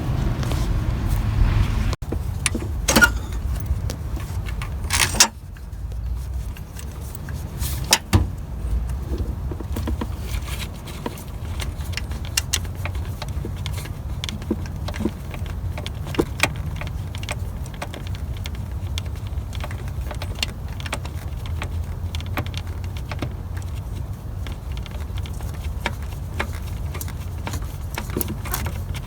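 Irregular metal clicks and clinks from hand work fitting a replacement starter and its mounting bolts, with a few louder knocks in the first eight seconds, over a steady low rumble.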